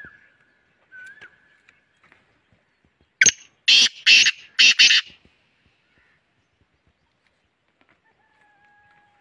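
Male black francolin giving its loud, harsh, grating call: a short first note, then three rasping notes over about two seconds, starting about three seconds in.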